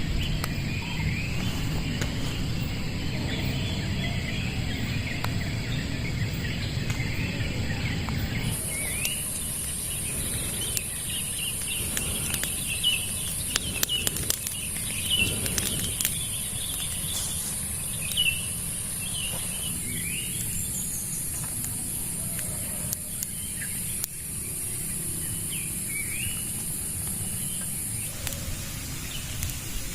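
Birds chirping repeatedly in the background over steady outdoor ambience. A steady high-pitched buzz or hiss starts suddenly about eight seconds in and cuts off near the end.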